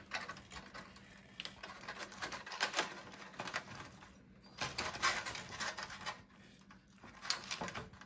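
Knife and fork carving a grilled chicken that rests on a sheet of aluminium foil: the foil crinkles and crackles in irregular bursts.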